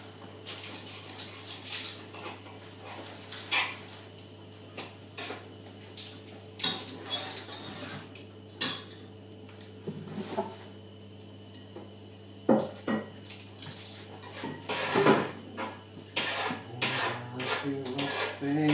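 Scattered clinks, taps and knocks of cutlery and pans being handled during cooking, irregular and varying in loudness, over a steady low hum.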